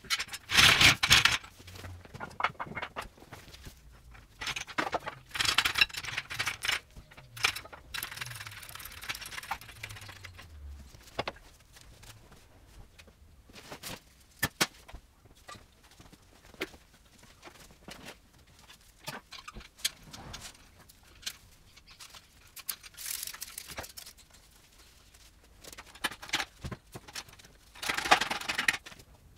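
Scattered metal clinks, knocks and scrapes from hand tools and engine parts as an engine is unbolted and freed under an engine hoist, with several louder noisy bursts about a second long.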